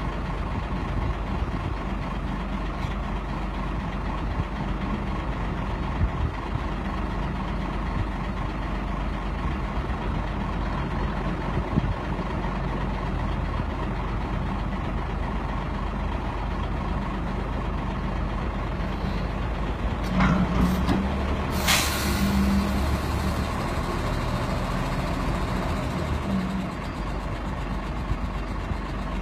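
Truck-mounted boat crane's engine running steadily, with two short sharp hisses a little past two-thirds of the way through.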